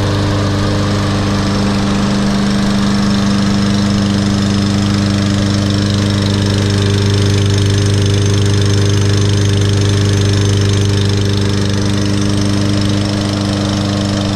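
Briggs & Stratton 625EX series engine of a Husqvarna all-wheel-drive walk-behind lawn mower running steadily, a little louder around the middle and easing slightly near the end.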